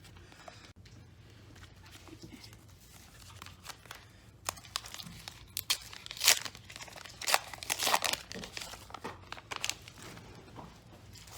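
Wrapper of a McDonald's Pokémon card pack being torn open and crinkled by hand: scattered crackles and rips, the loudest cluster in the middle.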